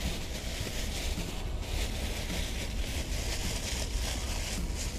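Wind buffeting the microphone as a steady low rumble, with faint crinkling of a thin plastic bag being pulled over and tied around a scooter seat.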